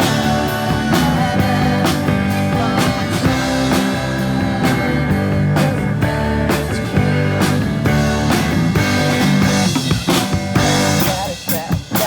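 Rock music with guitar and drums playing steadily at a loud level; near the end it breaks into a few separate drum hits.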